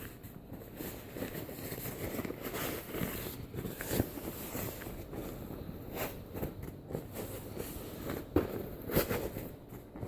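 Packaging crinkling and rustling with irregular clicks and knocks as a new laptop is handled and unwrapped from its packing.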